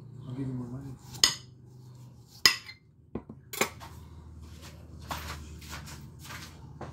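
Kitchenware clinking and knocking: three sharp, ringing clinks in the first four seconds, then softer rustling and scraping.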